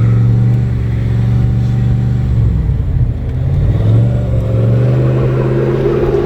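Engine of a turbocharged 1996 Mustang Cobra V8 running under way. The steady engine note drops in pitch for about a second near the middle, then rises again.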